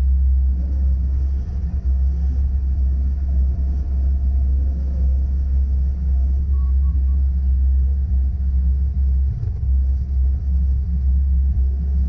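Bobcat S595 skid-steer's diesel engine running steadily, a loud low rumble heard from inside the cab as the machine drives and pushes snow with its plow. A few faint short beeps come about halfway through.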